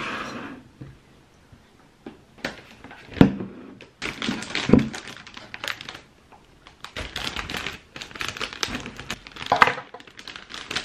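Clear plastic plant sleeve crinkling as it is handled and pulled off a potted houseplant, in two long stretches of crackling. A couple of sharp knocks come in between, about three and five seconds in.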